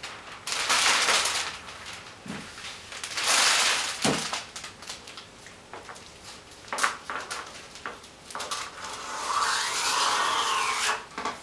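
Printed cellophane crinkling and rustling as a sheet is cut from a roll with scissors and handled, in irregular bursts. Near the end comes a longer hiss that rises and falls in pitch.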